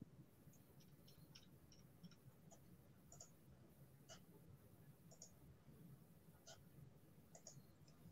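Near silence with faint, irregularly spaced clicks of a computer keyboard and mouse, about a dozen in all.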